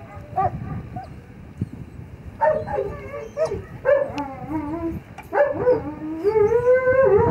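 Belgian Malinois whining and yelping: a few short yips, then from about two and a half seconds in, long wavering whines that grow louder toward the end.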